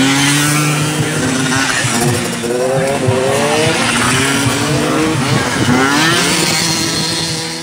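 Racing scooter engines revving hard as the scooters pass on a dirt track, more than one engine at once, their pitch climbing several times as the riders accelerate.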